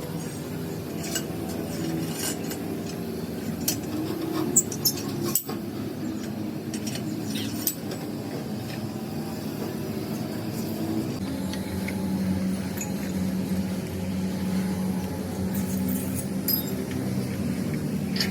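An engine running steadily, with scattered metallic clinks and clicks.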